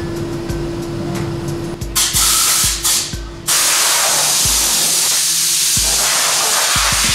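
A few short spurts of hissing spray, then from about three and a half seconds in a steady, loud hiss of pressurised spray or air. Background music with a low beat runs underneath.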